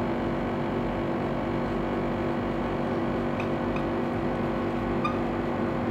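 Steady low background hum made of several fixed tones, with no speech over it.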